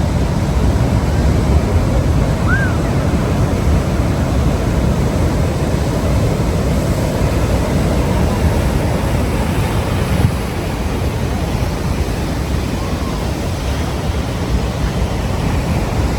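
Ocean surf breaking and washing on the shore, a steady rush of noise. A brief faint high chirp comes about two and a half seconds in.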